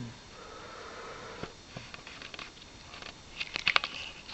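Snoring: a soft, drawn-out breath with scattered small clicks, then a quick loud run of clicks near the end.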